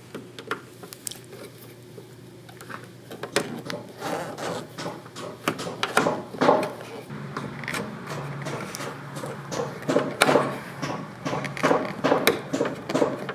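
Metal hand tools, a flathead screwdriver and needle-nose pliers, prying at a plastic pop-pin retainer on a car tail light: irregular clicks, knocks and scrapes of metal on plastic, sparse at first and getting busier after a few seconds.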